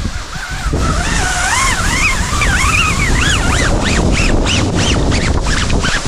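Rushing water and spray of a large cave waterfall buffeting the microphone, with a high wavering squeal from about a second in that swoops up and down, faster and faster toward the end.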